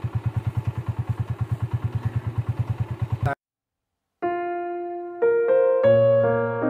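An engine running with a rapid, even beat, cutting off suddenly a little over three seconds in. After about a second of silence, piano background music begins.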